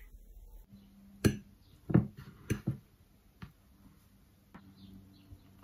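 Several sharp clicks and knocks at uneven intervals, the loudest two about a second and two seconds in, over a faint steady hum.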